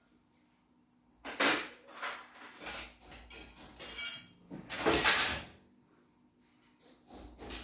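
Handling noises from taking apart a domestic embroidery machine: a few separate scrapes and knocks of plastic parts and casing. The loudest comes about five seconds in.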